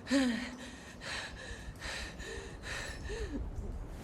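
A person breathing hard in short gasps, about four breaths roughly a second apart, with small whimpering vocal sounds between them.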